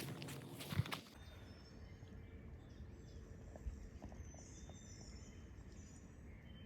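Footsteps knocking on a suspension bridge deck for about the first second, then they stop. After that there is quiet woodland ambience with a few faint high bird chirps.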